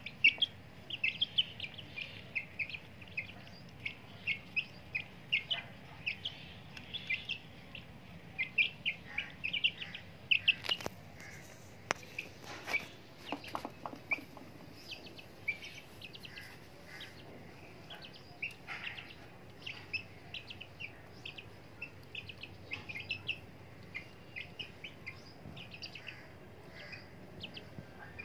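Young chickens peeping in short, high chirps, again and again, with a few sharp knocks about halfway through.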